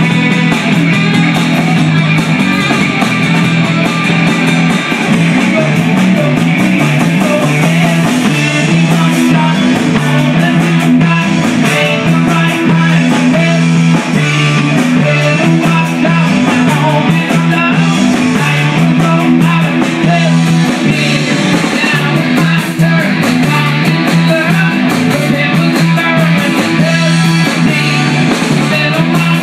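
Rock band playing a song, led by guitar over a steady low bass line, loud and continuous.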